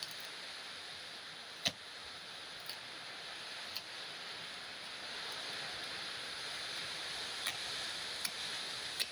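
Steady hiss with a handful of short, sharp clicks, the loudest about a second and a half in.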